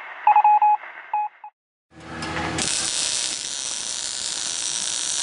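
Quick electronic beeps in two tones for about a second and a half, then after a brief gap a welding arc starts up and runs as a steady hiss.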